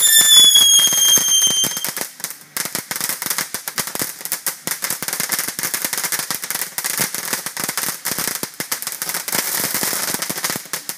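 Ground fountain firework going off: a high whistle rising slightly in pitch for about the first two seconds, then a fast, dense crackle.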